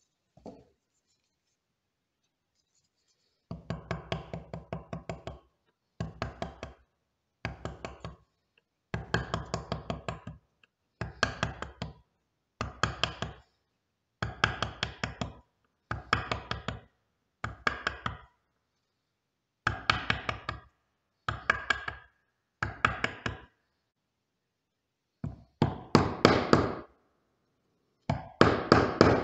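Wood chisel being struck in quick runs of blows as it chops waste out of a sawn notch in a pine board. About fourteen runs come after a quiet first few seconds, with short pauses between them, and the last ones are the loudest.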